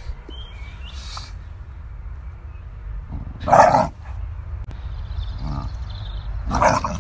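Staffordshire bull terrier barking twice while playing tug of war over a football, once about three and a half seconds in and again near the end.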